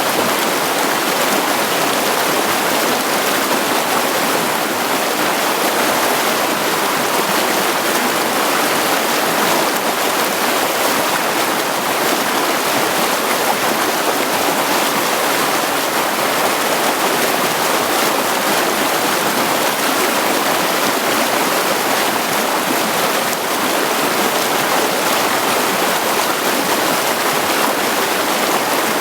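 Mountain stream flowing and splashing over rocks, a steady, even rush of water.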